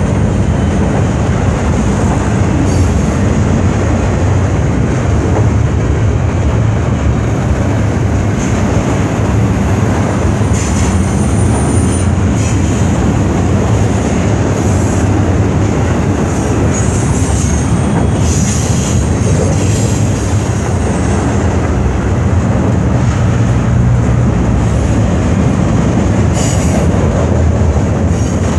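Double-stack intermodal freight cars rolling past: a steady, loud rumble of steel wheels on rail. Brief high wheel squeals come now and then.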